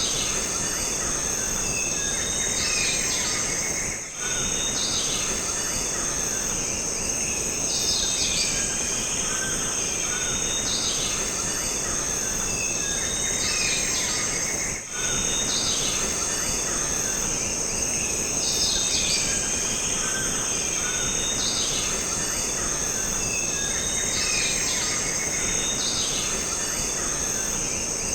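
Jungle ambience: a steady high-pitched insect drone with short bird and insect calls recurring every couple of seconds over a dense hiss. The whole bed briefly drops out twice.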